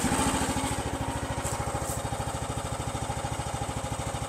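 Kymron YH14 mini excavator's Briggs & Stratton gas engine idling, an even rapid putter at a steady pitch, getting a little quieter over the first second or so.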